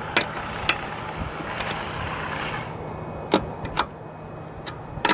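Scattered clicks and knocks from hand-tightening the flat-panel satellite antenna's polarity lock, over a steady rushing noise that drops away about halfway through.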